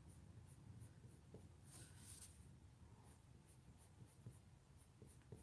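Faint scratching of a Prismacolor coloured pencil on mixed media paper: short, repeated strokes laying down a light base layer, with a denser run of strokes about two seconds in.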